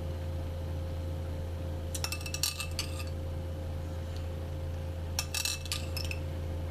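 Spoon clinking and scraping against a dish in two short flurries, about two seconds in and again about five seconds in, as the last of the bird's nest soup is scooped up. A steady low hum runs underneath.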